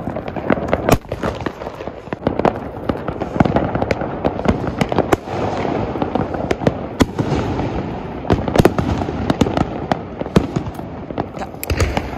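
Firecrackers going off: a continuous crackle of small bangs, with louder sharp cracks scattered irregularly through it.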